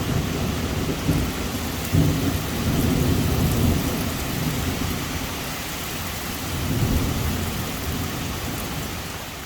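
Heavy rain pouring, with thunder rumbling in low swells underneath; the sound fades down near the end.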